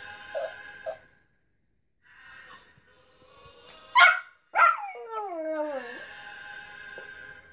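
Yorkshire terrier giving a sharp yelp about four seconds in, then a howl that slides steadily down in pitch for about a second, 'singing' along to a song playing in the room.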